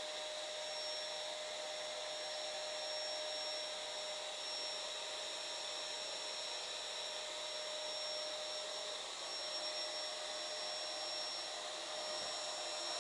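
Steady hiss, mostly in the upper range, with a faint high steady whine and a fainter lower tone running through it and no distinct event.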